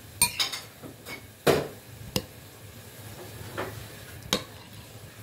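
A spoon clinking and knocking against a glass bowl of watermelon punch: several separate clinks, the loudest about a second and a half in.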